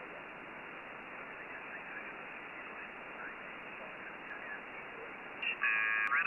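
Flex-5000 software-defined receiver's SSB audio on the 20-metre amateur band: a steady hiss of band noise with faint, indistinct signals. Near the end a loud burst of whistling, garbled tones sweeps in as the receiver is tuned across a station.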